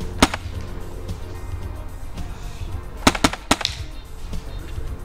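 Airsoft rifle firing: one sharp shot about a quarter second in, then three quick shots about three seconds in. Background music plays under it.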